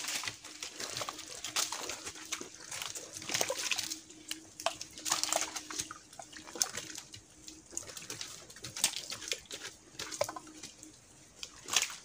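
Wet mud squelching and crackling in short irregular bursts as hands dig and pack it around a bamboo mud-lobster trap, over a faint steady hum that stops near the end.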